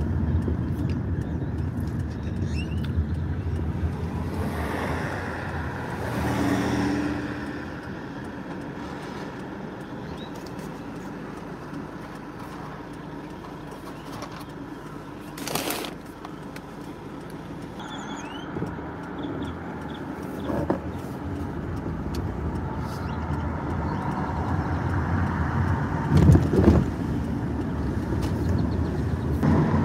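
A car driving, heard from inside the cabin: steady engine and road rumble, with a brief pitched sound about five seconds in, a sharp click midway and a louder thump near the end.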